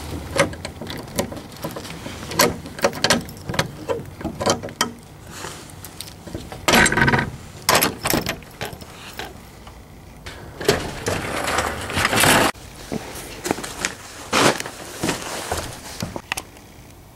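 Irregular clatter of clicks and knocks from objects being handled and moved about, with longer scraping or rustling noises about seven seconds in and again around eleven to twelve seconds in.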